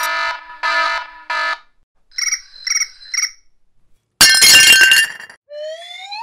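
A run of cartoon sound effects: a wrong-answer buzzer sounding three times, then three short high chimes, a loud crashing burst, and a rising whistle glide near the end.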